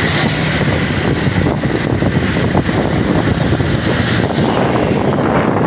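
Busy road traffic with vehicle engines running, and wind buffeting the microphone; a loud, steady noise.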